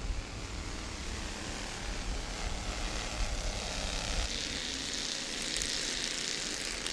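Race cars running around the track under caution, heard at a distance as a steady rushing noise, with the hiss growing louder about four seconds in.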